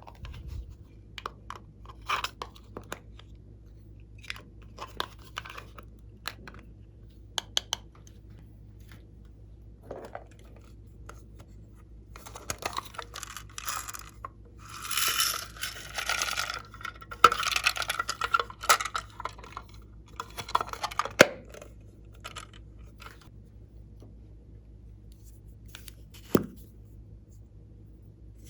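Glossy slime being worked by hand: scattered sticky clicks and pops, a denser stretch of handling noise lasting a few seconds in the middle, and two sharper snaps later on.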